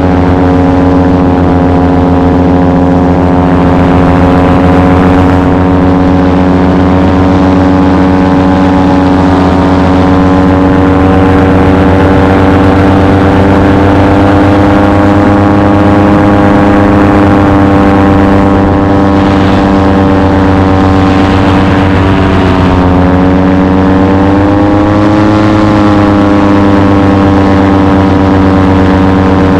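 Paramotor engine and propeller running steadily in flight. A little over twenty seconds in the engine speed dips, then comes back up a couple of seconds later.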